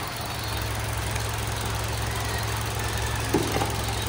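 Toyota Vios four-cylinder 2NZ engine idling steadily, freshly cleaned of heavy oil sludge and running quietly. A short sharp knock is heard about three and a half seconds in.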